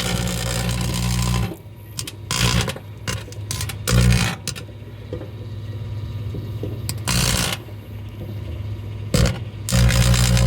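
Microwave oven running, its transformer humming loudly in surges that drop away and return several times, with short crackles and buzzing bursts from arcing around a tinfoil hat inside.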